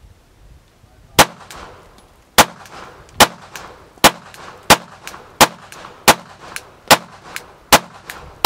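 Sig Sauer P365 9mm pistol fired in a steady string of about ten shots, roughly one every three-quarters of a second, starting about a second in.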